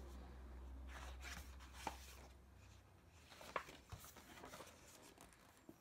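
Near silence in a small room: a few faint clicks and rustles of a picture book being handled and opened, over a low hum that fades out about two and a half seconds in.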